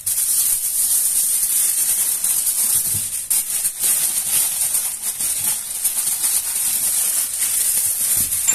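Aluminium foil crinkling and crackling as hands crumple and press it around a whole squash, with dense, irregular crackles throughout.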